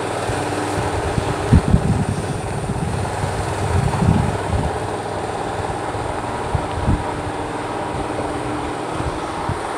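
A lorry's diesel engine idling steadily in the yard. Gusts of wind buffet the microphone, loudest about one and a half seconds in, again around four seconds, and briefly near seven seconds.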